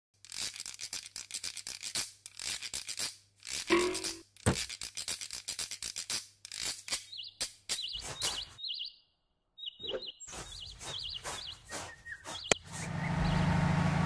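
Cartoon sound effects: rapid scratchy clicking strokes with short high bird-like chirps, a brief silence, then a motor starts running with a rising pitch near the end.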